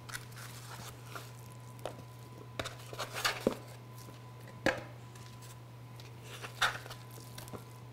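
Raw ground turkey being tipped and scraped out of a white tray into a stainless steel mixing bowl: scattered soft knocks, scrapes and plops, the sharpest knock a little past the middle. A faint steady low hum runs underneath.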